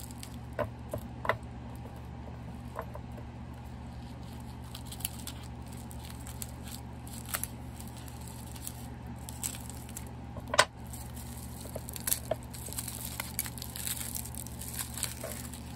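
Light rustling and scattered small clicks of packaging being handled and opened, with one sharper click past the middle, over a steady low hum.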